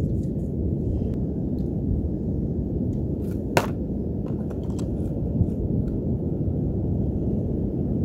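Steady low rumble of wind and surf on an open beach, with small clicks from handling a fishing rod and line and one sharper click about three and a half seconds in.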